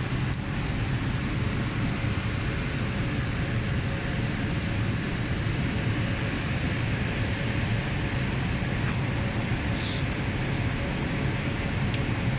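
Steady hum and hiss of an equipment room's air conditioning and cooling fans. About half a dozen light, sharp clicks scattered through it come from fibre patch-cord connectors being handled at the ODF shelf's adapter panel.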